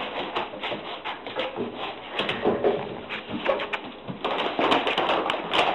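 Repeated knocks, clatter and rustling as a puppy with a bag over its head bumps blindly into metal chair and table legs and scrabbles on a wooden floor. It grows busier and louder in the last second and a half.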